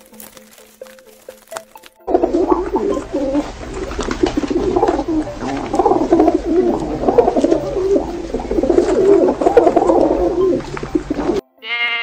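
Pigeons cooing, a dense run of low, wavering coos that starts about two seconds in and cuts off abruptly near the end. A lamb starts bleating right at the close.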